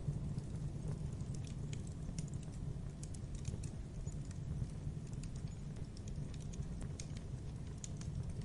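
Fire crackling: irregular sharp crackles and small pops over a steady low rumble.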